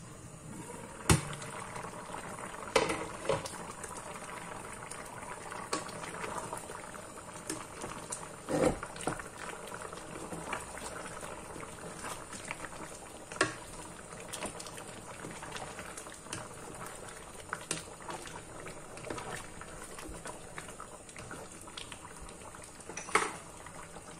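Beef curry with potatoes and carrots bubbling steadily as it simmers in a pot, with a few sharp knocks of a lid or wooden spatula against the pot.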